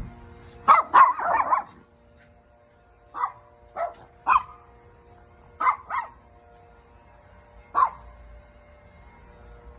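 Dog barking: a quick run of barks about a second in, then single barks and pairs at intervals of a second or two.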